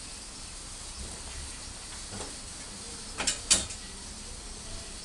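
Steady hiss of a gas tandoor burner. A faint knock comes about two seconds in, and two sharp metal clanks come a little past three seconds in, as the steel tandoor is handled.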